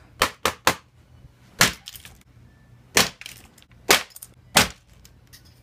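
Plastic of an old Asus laptop keyboard snapping and cracking as it is broken apart and its keys are pried out: seven sharp cracks, three in quick succession in the first second, then four more about a second apart, with a couple of faint ticks near the end.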